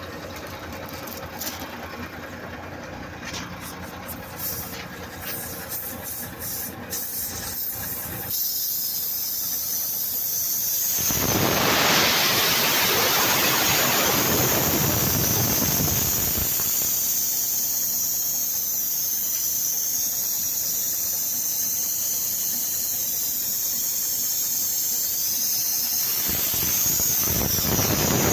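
Compressed air hissing at a punctured truck tyre with a high, wavering whistle. It starts suddenly about a third of the way in and swells louder twice.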